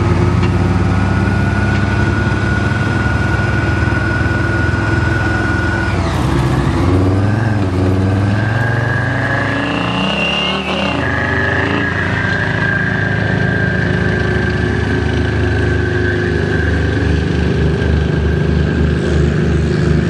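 Military armoured vehicles, tracked tanks and wheeled carriers, driving past with their engines running loud and steady under a high whine. The engine note shifts about halfway through as the vehicles manoeuvre.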